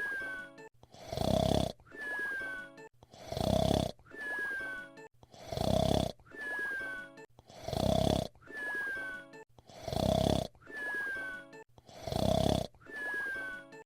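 Cartoon whistle-snore performed by a voice actor: a loud, rasping snore on the in-breath, then a short whistle that falls in pitch on the out-breath. It repeats evenly about every two seconds, six snores in all.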